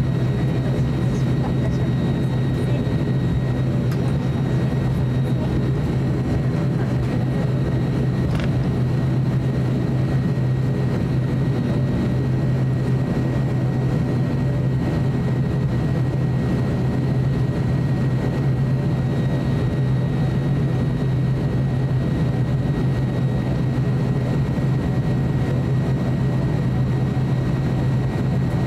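ATR 42-600's Pratt & Whitney PW127-series turboprop engines and propellers at taxi power, heard from inside the cabin: a steady low drone with a thin high whine over it.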